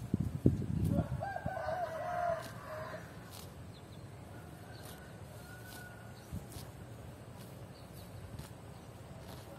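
A grazing cow tearing and chewing grass, a quick run of low crunching tears in the first second. About a second in, a rooster crows once, a wavering call lasting about a second and a half, and fainter short bird calls follow later.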